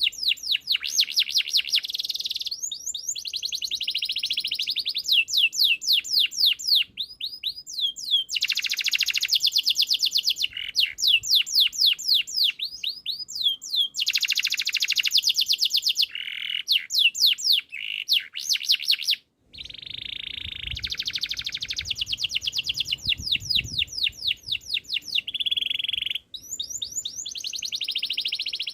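Domestic canary singing: long runs of fast repeated trills and rolling phrases of high sweeping notes, broken by a brief pause about two-thirds of the way through.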